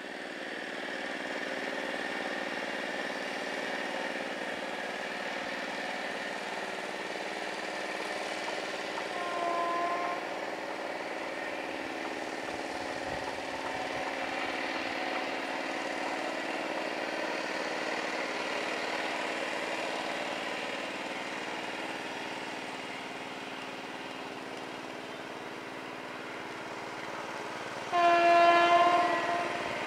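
WAP-5 electric locomotive hauling a parcel express approaching with a steady running hum and rumble. It sounds its horn once, briefly and faintly, about ten seconds in, and again, much louder, for about a second and a half near the end as it draws close.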